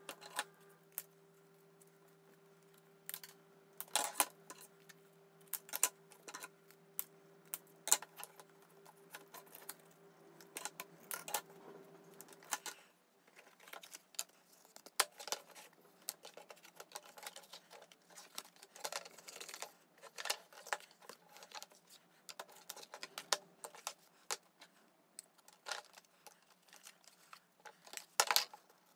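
Irregular light clicks, taps and scrapes of hands handling, pressing and fitting small cut card model parts on a cutting mat. A faint low steady hum runs underneath and stops suddenly about thirteen seconds in.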